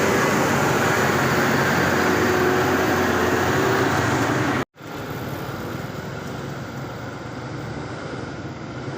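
Heavy truck engine running steadily under load, with road noise. About halfway through, the sound cuts off abruptly and comes back noticeably quieter.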